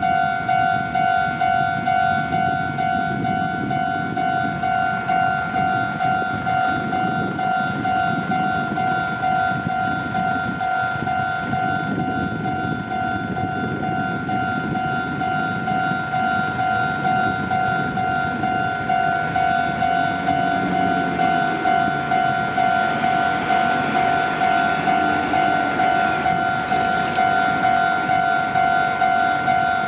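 Japanese railway level-crossing alarm ringing in a quick, even repeating clang, with a train rumbling past over the crossing underneath it; a rising and falling motor note from the train shows up about two-thirds of the way through.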